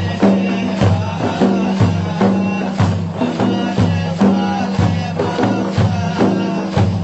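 Instrumental passage of traditional Arabic madih (praise-song) music: a steady hand-drum beat under a sustained melodic instrument line, with no singing.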